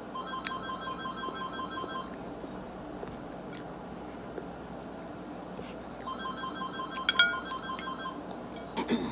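Telephone ringing twice, each ring a warbling electronic trill about two seconds long, about four seconds apart: an incoming call. A few sharp knocks come during the second ring and near the end.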